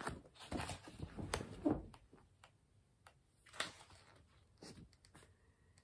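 Paper rustling and soft handling taps as the pages of a hardcover picture book are turned and the book is shifted in the hands: a cluster of rustles over the first two seconds and a shorter one about three and a half seconds in.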